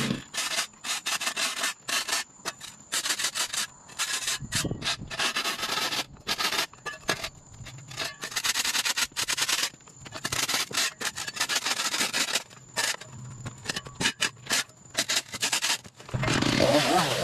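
Flat steel shovel blade scraping dirt and sod off a buried concrete sidewalk in repeated short strokes, about one or two a second. Near the end a chainsaw starts running and revving.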